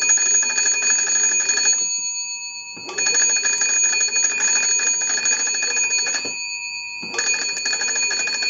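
The original twin bells of an American Electric wooden wall crank telephone, rung by turning its hand-cranked magneto: the clapper strikes the two gongs rapidly in a steady clanging ring. It rings in bursts of a few seconds as the crank is turned, stopping about two seconds in, ringing again from about three to six seconds, and starting once more about seven seconds in.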